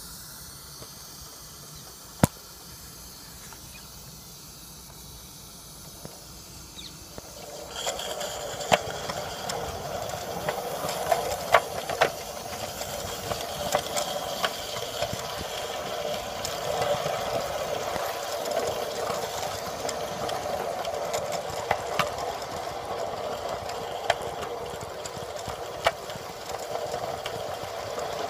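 Roundhouse George live-steam garden railway locomotive. It hisses softly at first, with one sharp click about two seconds in. From about seven and a half seconds it turns to a louder, steady steam hiss and running noise, with sharp clicks every second or two as the train runs.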